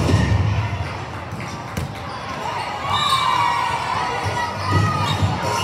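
Volleyballs being struck and bouncing on the court floor over the steady hum of a crowded hall with several courts. A voice calls out, drawn out, about three seconds in.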